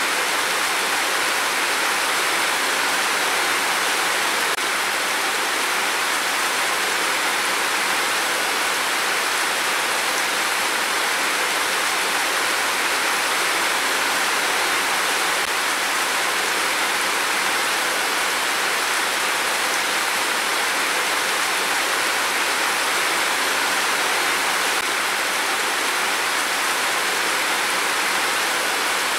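Heavy rain pouring down in a steady, even hiss that does not let up.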